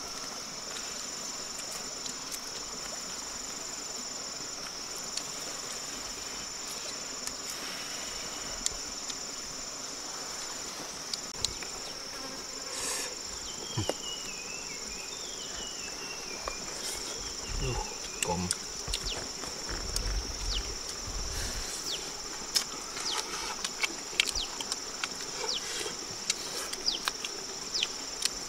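Insects trilling in a steady, high, shrill drone that breaks off briefly every few seconds. Over it come scattered small clicks and smacks as grilled fish is picked apart by hand and eaten, with a few low thumps past the middle.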